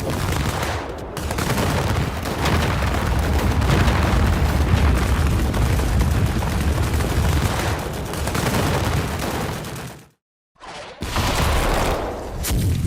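Anime fight sound effects: a dense, rapid volley of hard impact hits, like a barrage of punches, running for about ten seconds, cutting out for a moment, then resuming.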